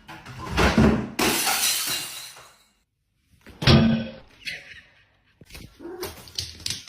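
A crash of something falling and breaking, with a shattering sound, followed after a brief silence by a second loud hit and scattered small knocks.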